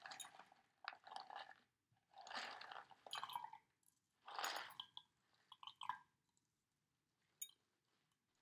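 Coarse rock salt (ice cream salt) shaken out of a cardboard box in several short crunchy pours, the crystals rattling and trickling out; the pouring stops about six seconds in.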